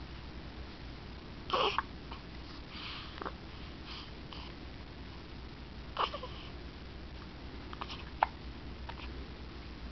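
Hiccups: two louder, short hiccups about four seconds apart, with softer clicks between them and one sharp click near the end.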